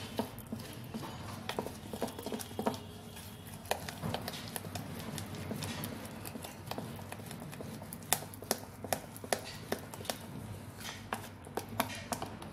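A spoon beating thick cake batter in a plastic bowl: a quick, irregular run of clicks and taps against the bowl's side. The taps come more densely in the second half.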